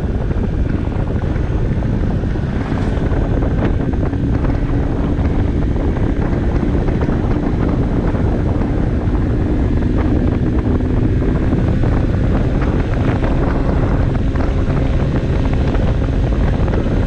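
Barton Volcano 50cc moped riding along at a steady speed: the small engine's steady hum is under heavy wind rush on the microphone.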